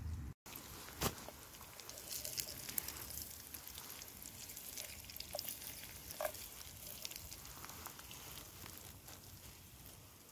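Light rain pattering as scattered faint drops and ticks, with one sharper click about a second in.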